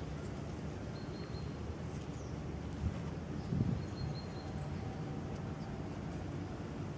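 Steady low outdoor background rumble with a few faint high bird chirps, and two soft low thumps about three seconds in.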